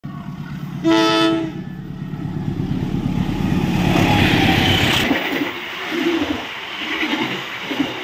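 CC 201 diesel-electric locomotive giving one short horn blast about a second in, the driver's friendly greeting. Its engine then rumbles louder as it approaches and passes at speed, and the rumble drops away suddenly about five seconds in. The passenger cars roll past after it with rhythmic wheel clacks over the rail joints.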